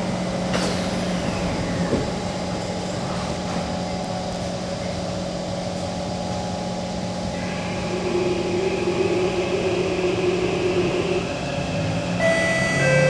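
Onboard a Kawasaki C151 metro train: the doors knock shut about half a second in, then a steady hum from the idle car. Near the end the Toshiba permanent-magnet traction motors and inverter start to whine with rising pitch as the train pulls away.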